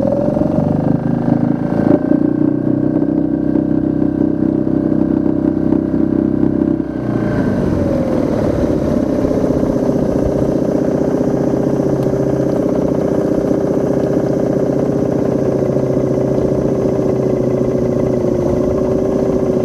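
Small four-stroke outboard motor running steadily at low throttle. About seven seconds in its note changes and it gets a little quieter, then runs on evenly.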